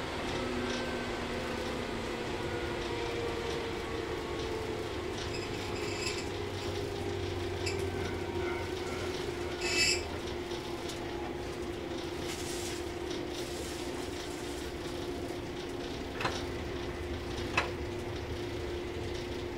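Running noise of a JR 115-series 1000-subseries electric train with MT54 traction motors, heard aboard: a steady rumble with a motor-and-gear hum that drifts slightly lower, then holds steady. A brief high-pitched noise comes about ten seconds in, and two sharp clicks near the end.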